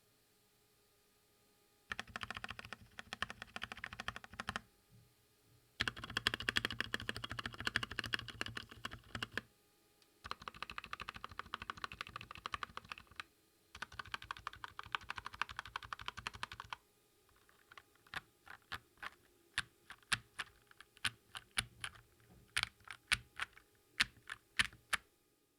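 Keychron K2 mechanical keyboard with red linear switches, its stabilized keys pressed rapidly in four runs of a few seconds each. Then the keys are pressed one at a time, about twice a second, as a stabilizer sound test.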